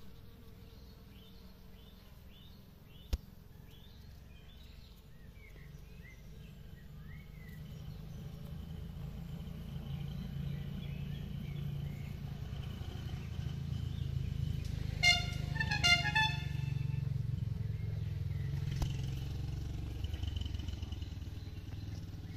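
Small birds chirping over a low rumble of road traffic that grows louder through the middle, with two short car-horn honks about a second apart two-thirds of the way through. A single sharp tap sounds about three seconds in.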